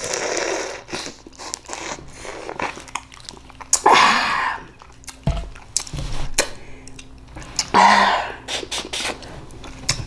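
Close-up eating mouth sounds from a boiled crawfish: sucking the juice out of the head, then chewing. Two louder noisy mouth sounds come about four and eight seconds in, and a low thump comes just after five seconds.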